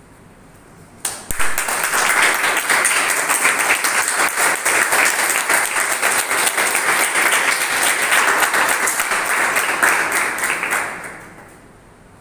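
An audience clapping, starting abruptly about a second in, holding steady, and dying away near the end.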